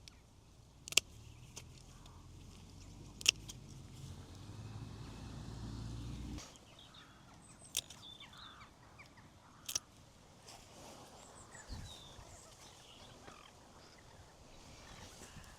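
Quiet outdoor garden ambience: a low rumble that stops abruptly about six seconds in, a few sharp clicks, and faint bird chirps in the second half.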